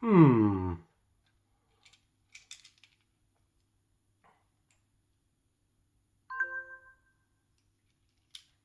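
A loud tone with many overtones slides steeply down in pitch over most of a second. It is followed by a few faint clicks of hard plastic Transformers toy parts being handled, a short burst of steady tones about six seconds in, and a sharp click near the end.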